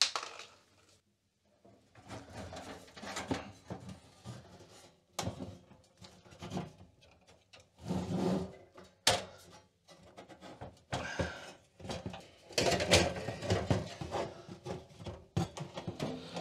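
Metal cover of a Commodore Amiga 2000 being handled and lifted off its chassis: irregular scraping, knocks and clicks of the cover sliding against the case, loudest about halfway through and again a few seconds before the end.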